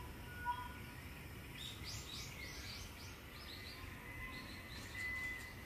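Small birds chirping: a quick run of short, falling chirps about four a second, then thin steady whistles, over a low rumble of wind.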